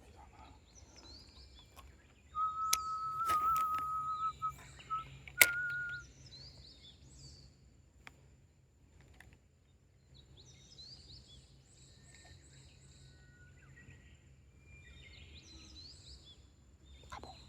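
Small birds chirping with short, quick rising calls. About two seconds in, a steady high whistling tone runs for about two seconds with a few sharp clicks, then a shorter, slightly higher tone; these are the loudest part.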